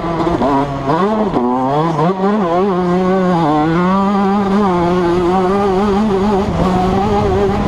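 Yamaha YZ125 single-cylinder two-stroke engine heard from the bike while riding a motocross track. Its revs rise and fall sharply several times in the first two seconds or so, then run fairly steady at high revs.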